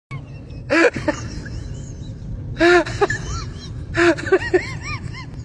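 A dog whimpering and yelping in three short bouts of rising-and-falling whines, over a steady low rumble.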